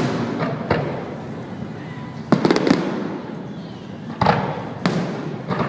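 Fireworks shells bursting, sharp bangs with echoing tails: one under a second in, a quick cluster of several cracks around two and a half seconds, then three more single bangs toward the end.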